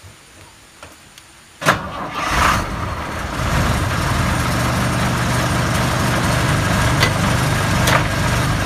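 Ashok Leyland tourist bus engine catching on a cold start after months standing unused: a sudden loud start under two seconds in, a brief surge, then it settles into a steady idle.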